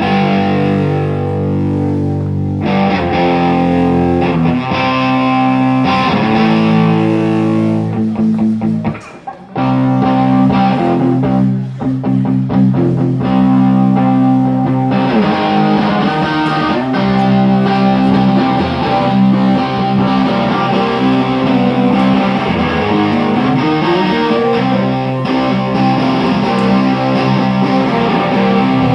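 Electric guitar playing held chords and riffs during a band's sound check. The playing cuts out briefly about nine seconds in, then resumes.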